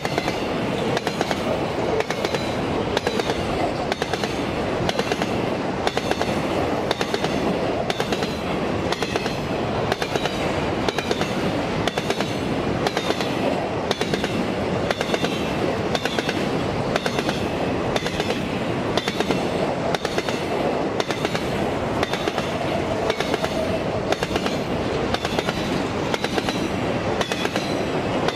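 Freight train rolling past, its wagons' wheels clicking over the rail joints at an even rhythm a little more than once a second, over a continuous rumble and rattle.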